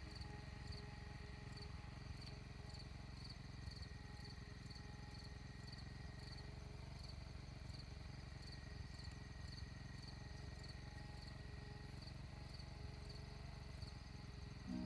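Insects chirping in a steady, even rhythm of about two chirps a second, over a constant low background rumble.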